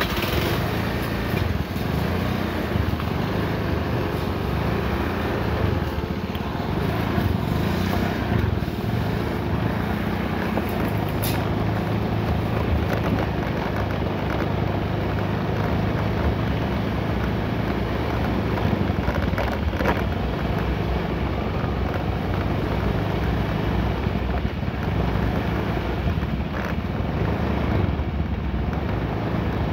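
Small two-stroke brush cutter engine running steadily at working speed, its pitch wavering a little.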